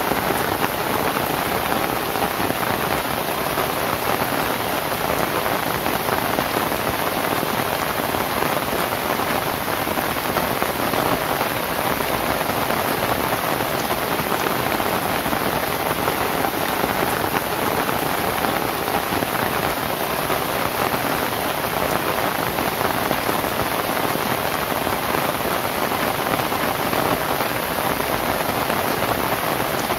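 Steady heavy rain falling on a thatched palm-leaf roof and surrounding leaves: an even, unbroken hiss of drops that does not let up or change.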